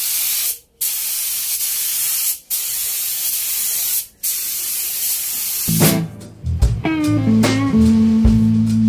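Air spray gun hissing as it sprays a thin coat of sanding sealer onto wood, in four bursts with brief pauses as the trigger is released. About two-thirds of the way in, the hiss stops and guitar music with a bass line takes over.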